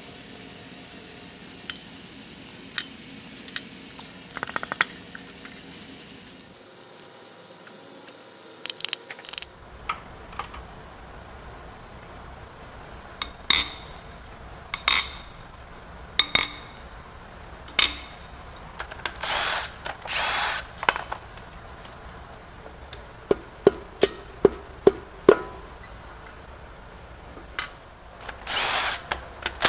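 Hand tools and a cordless impact wrench working on the connecting-rod cap bolts of a stripped Toyota 2UZ-FE V8 bottom end. Scattered clicks and four ringing metal clinks come about a second and a half apart through the middle, then a quick run of clicks. The impact wrench runs in two short bursts, one about two-thirds through and one at the very end.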